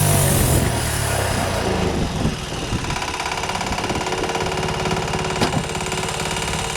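Wood-Mizer LT15 band sawmill's engine dropping in pitch from cutting speed at the start, the sawing hiss of the blade fading out, then running steadily at a lower speed. A single sharp click a little over five seconds in.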